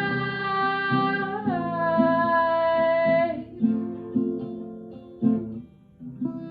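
Singer holding one long note over strummed acoustic guitar, the note stepping down in pitch partway through. The voice stops about three and a half seconds in, and a few last guitar strums ring and fade out as the song closes.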